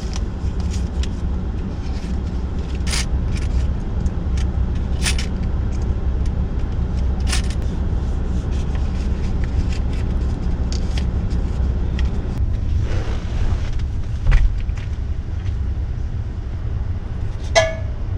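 Car driving, a steady low engine and road rumble with scattered clicks, and a brief thump about fourteen seconds in.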